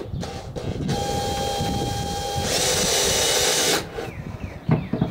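Power drill running with a steady whine, then its small bit boring a hole through plywood with a louder hiss for about a second before it stops.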